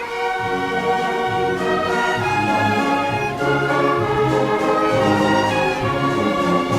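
Orchestral music: strings and brass playing an old Russian waltz, mostly in held, sustained chords.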